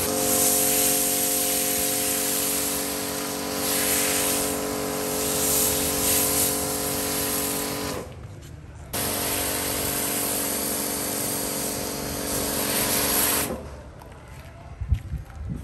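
Pressure washer running with a steady motor hum while its foam cannon sprays snow foam with a hiss. The spraying cuts out briefly about eight seconds in and again near the end, where a few low knocks are heard.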